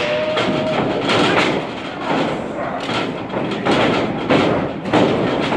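Wrestlers' boots shuffling and thudding on the wrestling ring's canvas and boards as they circle and lock up, a run of noisy thuds about every half second.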